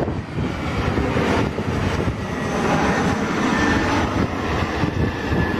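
Bombardier CRJ regional jet's twin rear-mounted General Electric CF34 turbofans passing low overhead on landing approach. A loud, steady jet rush carries a faint high whine through the second half.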